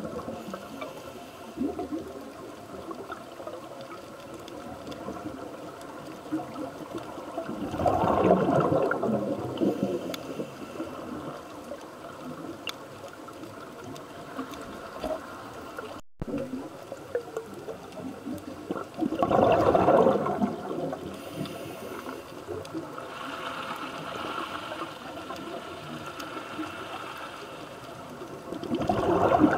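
Underwater scuba diver's regulator exhaling bubbles, three loud bubbling surges about ten seconds apart, each lasting a couple of seconds, over a steady underwater hiss.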